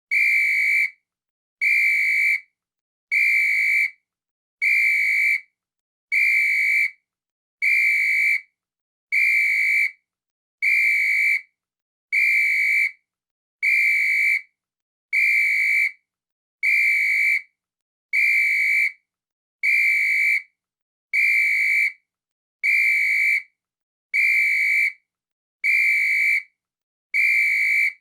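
A whistle blown in short blasts of steady pitch, each just under a second long, repeating evenly about every 1.6 seconds.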